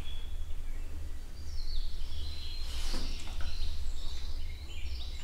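Small birds chirping in short high calls through the middle and latter part, over a steady low outdoor rumble, with a brief rustle about three seconds in.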